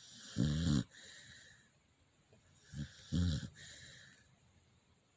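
A sleeping pet snoring, worn out from running. There are two loud, rasping snores, one about half a second in and one about three seconds in, the second led by a short catch, with softer breathing in between.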